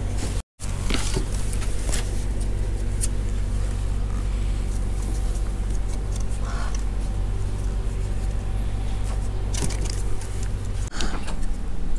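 A steady low motor hum with scattered light clicks and taps; the sound drops out for a moment just after the start.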